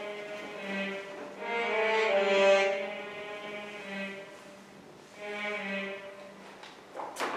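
Slow music of long held, bowed-sounding notes that swell and fade, loudest about two seconds in and swelling again past the middle. A single sharp click comes near the end.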